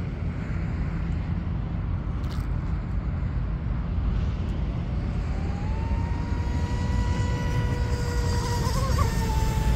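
RC speedboat's brushless motor and prop whining as the boat accelerates into a high-speed sprint: the pitch rises about five seconds in, then holds high and steady, wavering briefly near the end.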